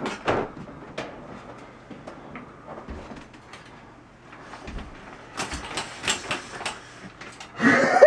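Rustling and light knocks of a person getting up in a bathtub, then a run of sharp scrapes from about two-thirds of the way in that fit shower-curtain rings sliding along the rod as the curtain is drawn, with a loud noisy burst just before the end.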